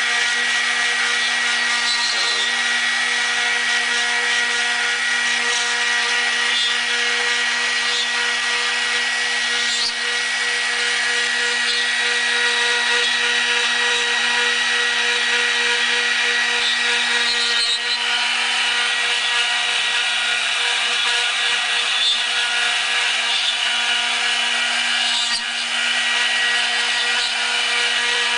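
CNC router spindle running with a steady whine while a 1.5 mm radius cutter mills oak, the bit cutting through the wood with constant rasping noise. The cutting noise dips briefly a few times.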